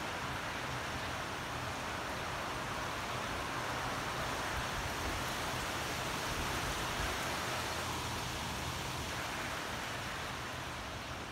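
Steady rain falling on trees and garden foliage, an even hiss that holds level throughout.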